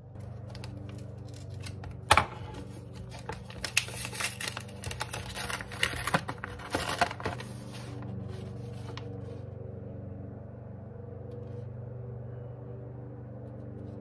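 Paper rustling and crackling as an envelope is opened and folded letter sheets are taken out and unfolded, with a sharp snap about two seconds in. The rustling dies away about nine seconds in.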